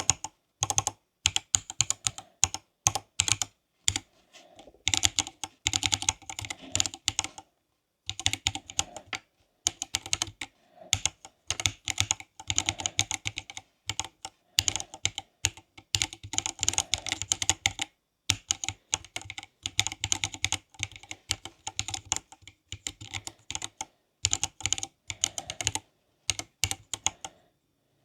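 Typing on a Silakka54 mechanical keyboard: quick runs of key clacks lasting a few seconds each, with short pauses between them.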